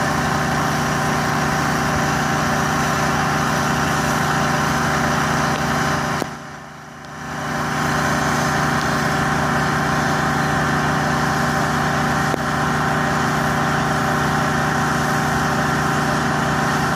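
Engine-driven pressure washer running steadily, with the hiss of the spray from the lance over the engine. About six seconds in the sound drops away suddenly and comes back within two seconds.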